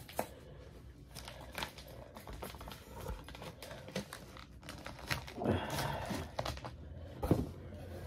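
Polystyrene packing peanuts and a cardboard shipping box rustling and crinkling as items are lifted out, with scattered light clicks, a louder rustling stretch about five and a half seconds in, and a sharp knock a little after seven seconds.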